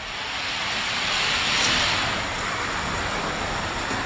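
Die-cast toy cars rolling at speed down a long plastic orange drag track: a rushing rumble that builds over the first couple of seconds and then holds steady.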